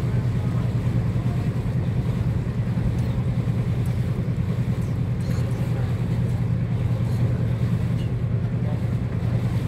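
Small motorboat's engine running at a steady speed: a low, even drone.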